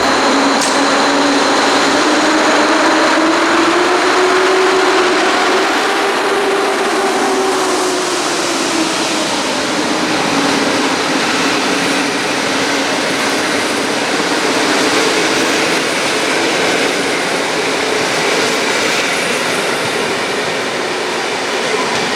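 PKP EP07 electric locomotive hauling a rake of passenger coaches through the station, with a steady rushing rolling noise. Over it is a humming tone that rises and then falls in pitch during the first ten seconds.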